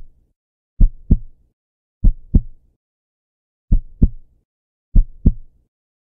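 Heartbeat sound effect: pairs of deep thumps in a lub-dub rhythm, about four pairs, a little over a second apart.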